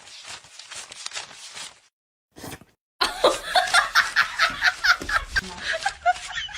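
People laughing: breathy, rapid snickering at first, then after a short gap louder laughter in quick bursts of several per second.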